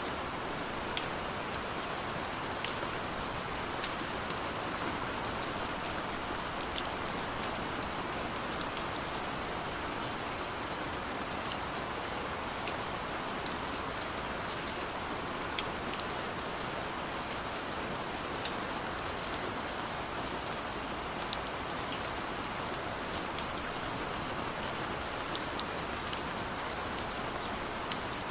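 Steady gentle rain falling, an even hiss with scattered individual drop ticks.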